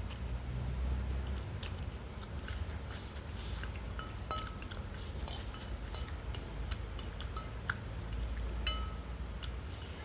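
Eating at close range: utensils clinking against a bowl or plate in a series of short, lightly ringing clinks, the sharpest about four and nine seconds in, among bites and chewing.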